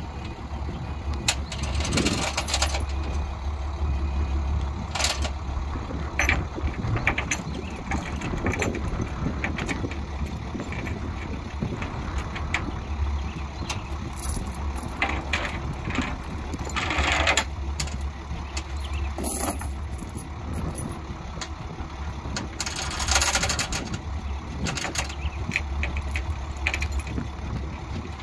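Tie-down chains and a chain binder clanking and rattling as they are unhooked from the front of a pickup on a flatbed trailer. A truck engine idles steadily underneath.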